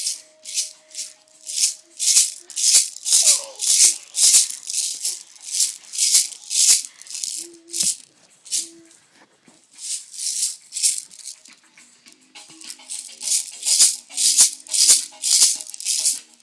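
Baby rattle shaken loudly in a steady rhythm, about two shakes a second, stopping for about two seconds midway before starting again.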